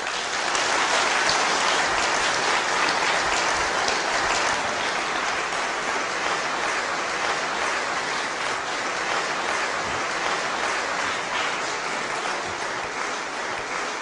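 Audience applauding steadily in a dense, continuous clatter of claps, easing slightly toward the end.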